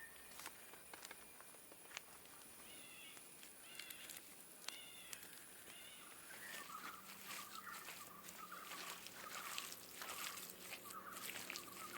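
Faint outdoor ambience of birds calling: four short chirps a few seconds in, then a run of repeated warbling calls through the second half. A steady high-pitched whine lasts until about halfway, and small clicks are scattered throughout.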